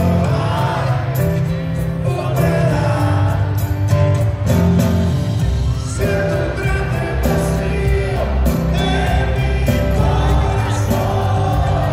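Live pop-rock band in concert: a lead singer's voice over drums, guitar and a deep bass line.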